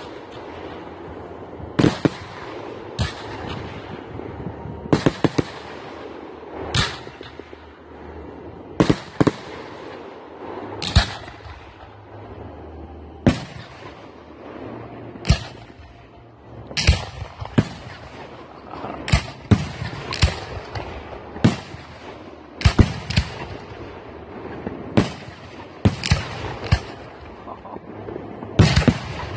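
Aerial firework shells bursting in a string of sharp bangs, one every second or two and sometimes in quick pairs, with a steady background noise between.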